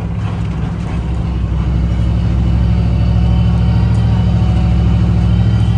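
Road vehicle driving along, a steady low engine drone with road noise that grows slightly louder over the first few seconds.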